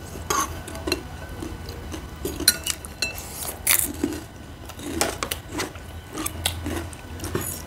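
Metal spoons clinking and scraping against bowls during eating, a handful of sharp clinks spread through, with chewing between them.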